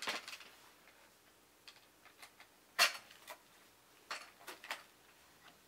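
Scattered sharp clicks and taps of small plastic toy pieces being handled, one louder click about three seconds in and a quick cluster of several a second later.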